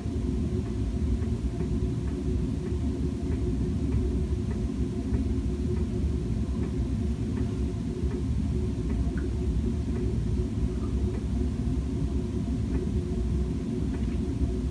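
Steady low rumble with a faint steady hum, like room or machine noise in the background.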